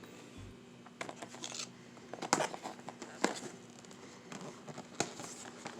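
Grocery packaging being handled: scattered rustles, crinkles and light knocks, a few sharper clicks spread through the pause.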